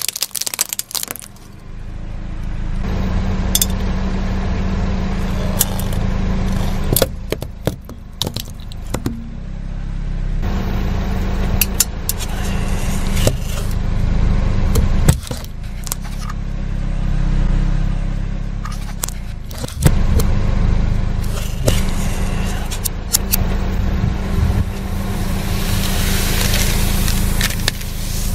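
A car's engine running low and steady as its tyre rolls slowly over small plastic objects, crushing them with a scattered series of sharp cracks, snaps and crackles.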